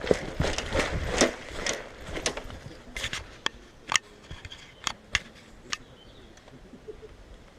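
Rustling and crunching with dense clicks for the first couple of seconds, then a series of about eight sharp, separate clicks or snaps at irregular intervals, fading out near the end.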